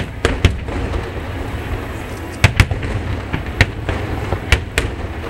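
Aerial firework shells bursting in a finale barrage: sharp bangs in quick clusters, about eight or nine in all, over a steady low rumble.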